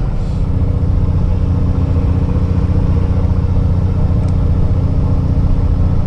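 Fishing boat's engine running steadily: a continuous low rumble with a steady hum.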